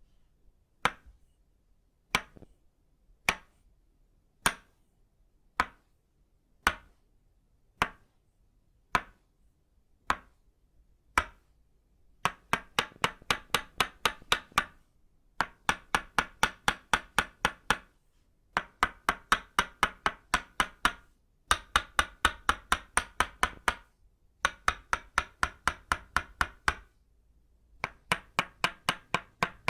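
Itauba-wood tok sen mallet striking a wooden peg. It gives single knocks about a second apart for the first twelve seconds, then rapid rhythmic tapping at about five strikes a second, in runs of two to three seconds with short pauses.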